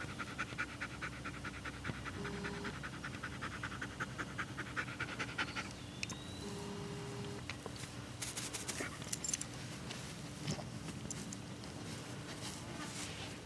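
German Shepherd puppy panting fast and evenly, several breaths a second, for about the first five seconds. The panting then stops and scattered soft clicks and rustles follow as the dog noses about in the grass.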